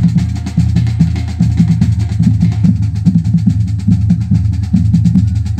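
Percussion band of large bass drums and smaller drums playing a fast, steady beat.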